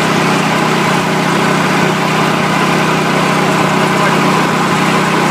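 Powerland 6500-watt portable generator's engine running steadily on natural gas, with an E3 spark plug fitted in place of the stock NGK plug.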